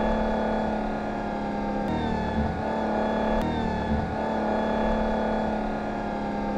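Sports car engine sound effect running steadily, with slight recurring swells in level.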